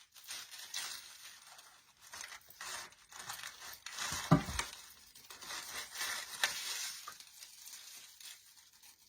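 Rustling and crinkling of artificial pine stems and picks being handled and sorted, with scattered light clicks and one sharp click about four seconds in.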